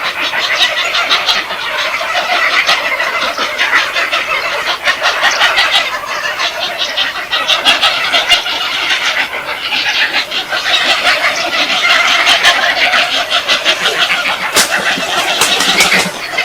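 A flock of birds calling and chattering together, a dense continuous mix of rapid squawks and clicks.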